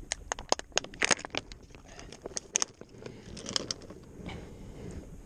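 A quick, irregular run of sharp clicks and crackles from gear being handled, then rustling as hands dig through a fabric bag.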